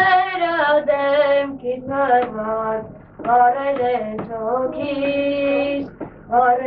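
A boy singing solo and unaccompanied, in long held notes with short breaks between phrases.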